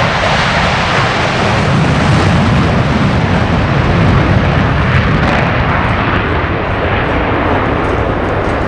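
Loud, steady aircraft engine noise, a dense rush that swells slightly in the middle.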